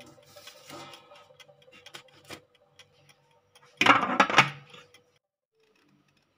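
A short burst of splashing water in the base of an electric food steamer about four seconds in, after faint scattered clicks. A faint click or two follows near the end as the steamer's plastic timer dial is turned.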